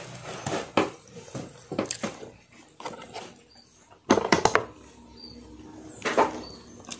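Handling noise from a phone being picked up and moved: rubbing and scattered clicks and knocks, with a quick cluster of sharp knocks about four seconds in.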